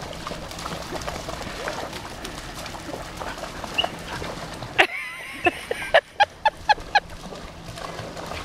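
Groenendael (Belgian Shepherd) puppies giving a quick run of short, high yips and barks about five seconds in, over steady splashing of wading in shallow lake water.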